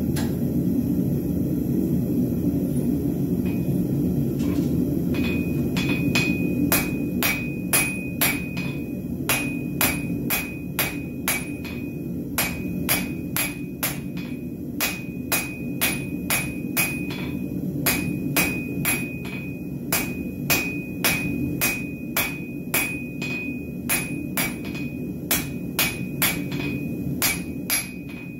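Hand hammer striking red-hot round steel bar on an anvil, forging it down to square. The blows start about five seconds in and come at roughly two a second in runs with short pauses, each one ringing with a high anvil ping. A steady low rumble, the gas forge burner, runs underneath.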